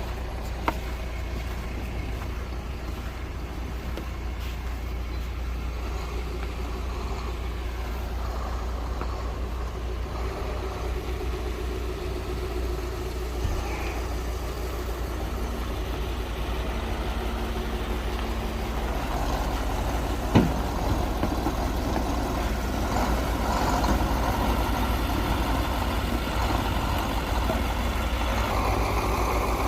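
Crane truck's diesel engine running steadily, growing a little louder about two-thirds in, with a single sharp knock at that point.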